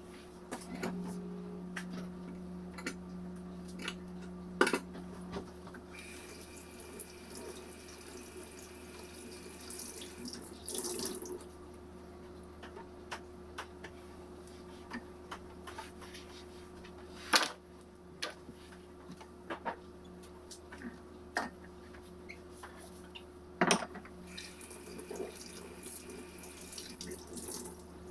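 Dishwasher running through its wash cycle: a steady motor hum with water rushing inside, which swells twice into a louder hiss for a few seconds each. Several sharp knocks and clatters of kitchen items cut in.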